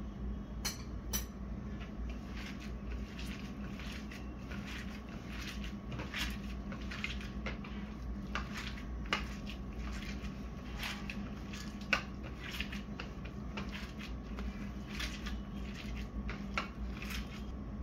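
Raw minced meat being kneaded by hand in a plastic dish: irregular wet squishing and slapping with small clicks, going on the whole time.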